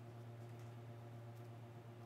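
Quiet kitchen room tone: a steady low electrical hum, with a couple of faint soft ticks.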